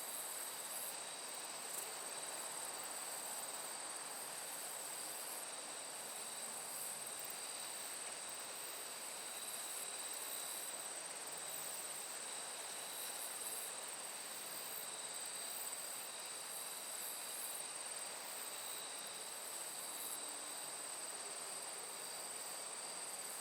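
Chorus of crickets and other insects trilling steadily at several high pitches over a soft, even hiss.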